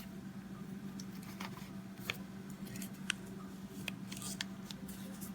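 Scattered light clicks and ticks from hands handling a bare computer motherboard and its processor, irregular and of varied strength, over a steady low hum.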